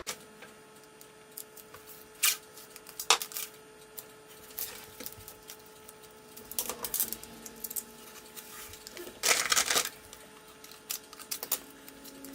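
Masking tape being handled, stretched off the roll and torn while taping off a wooden boomerang: scattered light clicks and taps, with one longer ripping pull lasting about half a second around nine seconds in, over a faint steady hum.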